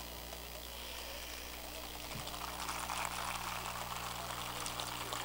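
A crowd applauding, a dense even patter of clapping that builds up from about a second in and keeps going.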